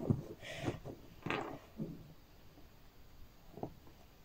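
A few quiet, scattered clicks and knocks of plastic HEXBUG Nano track segments and connectors being fitted together and set down on a tabletop.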